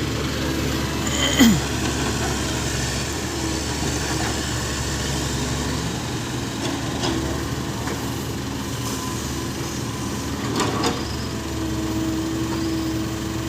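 A small six-wheel truck's engine running steadily, with a brief sharp sound about a second in.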